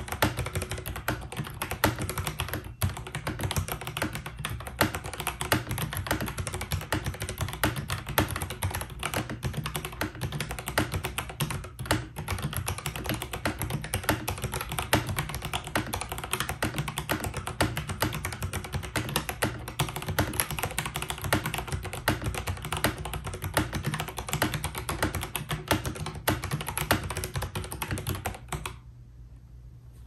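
Fast, continuous typing on an FL-ESPORTS FL980 mechanical keyboard with factory-lubed Kailh Box Red linear switches, a steel plate and PBT cherry-profile keycaps: a dense stream of key clacks that stops about a second before the end.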